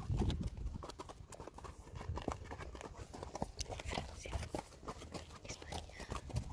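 Hooves clip-clopping on hard ground in an irregular run of sharp clicks.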